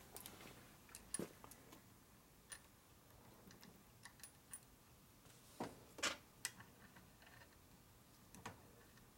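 Light, sparse clicks and taps of small metal parts being handled and fitted on an aluminium transmission cover, with a couple of slightly sharper clicks about six seconds in, against near silence.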